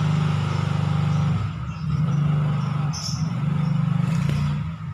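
Music leaking from the earcups of a cheap knock-off JBL PPT 450 on-ear headphone held up to the microphone, heard mostly as a loud, muffled bass line with little treble. The bass cuts off near the end.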